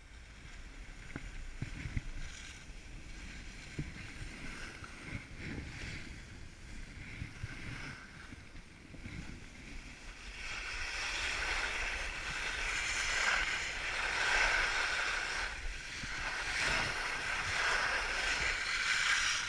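Skis sliding and scraping over hard, icy snow, with wind rushing on the microphone. The hiss of the skis grows much louder from about ten seconds in as the skier picks up speed down the slope.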